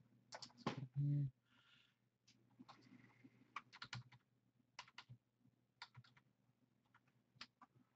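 Computer keyboard being typed on, irregular quiet key clicks, with a brief low vocal sound about a second in.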